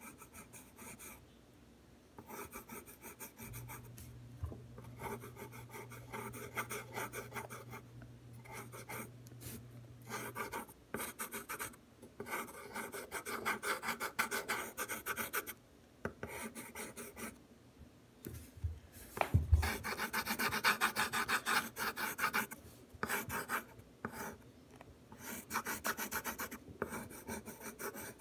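Graphite pencil scratching on paper in runs of quick, short, back-and-forth hatching strokes, sketching fine tree branches. The strokes come in bursts with brief pauses and are busiest about two-thirds of the way through.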